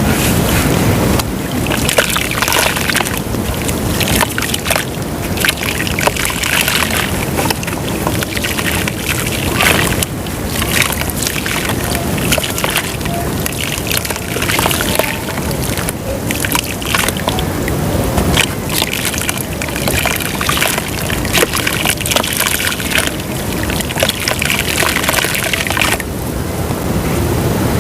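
Lumps of dry white dirt crumbling in water, giving a dense crackle and fizz peppered with many small clicks, along with some sloshing of the water.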